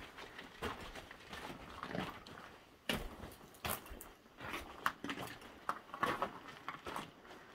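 Footsteps crunching and scuffing irregularly over loose broken rock and gravel on a mine tunnel floor.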